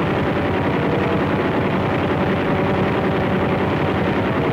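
Aircraft engine running loud and steady, a dense drone with a faint even pitch, on an old film soundtrack.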